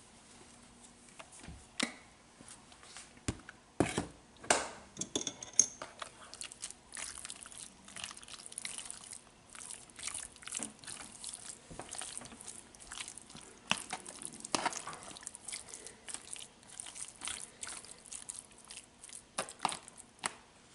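A metal fork mixing raw chicken pieces coated in curry powder in a clear plastic container, giving irregular scraping and clicking, loudest about four seconds in.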